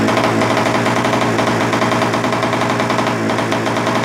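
Puch Magnum X moped's two-stroke single-cylinder engine running with a fast, even firing beat, on a cold start after years of not running.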